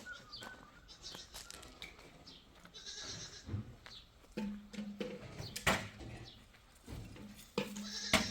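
Goats and sheep bleating, with several sharp knocks, the loudest about two-thirds of the way through and near the end.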